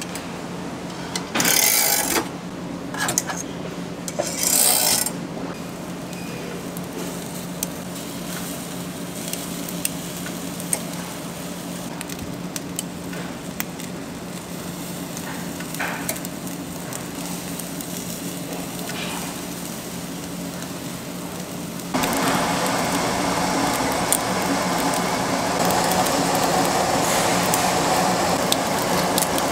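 Freshwater eel sizzling on a tabletop grill's wire grate under a steady low hum, with a couple of short metallic scrapes and cuts of tongs and kitchen scissors early on and light clicks of the tongs. About 22 s in the sizzling grows suddenly louder and stays so as the grate fills with cut pieces.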